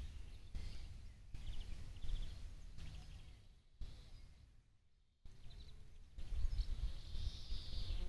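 Wind buffeting the phone's microphone in gusts, dropping away almost entirely for about a second near the middle. A few faint bird chirps sound over it.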